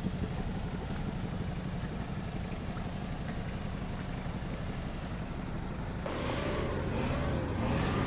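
Off-road 4x4 engine running with a steady low rumble. About six seconds in, the sound becomes suddenly fuller and a little louder.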